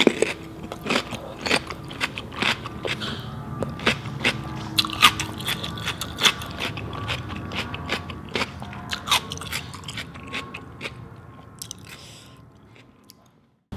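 Close-miked chewing of a mouthful of raw Persian cucumber: a quick run of crisp, wet crunches that thins out over the last few seconds.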